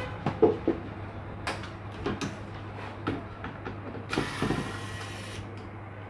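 Clicks and knocks of hands handling a flat-screen TV's plastic back cover, then a corded electric screwdriver runs for about a second and a half, undoing a back-cover screw to open the set.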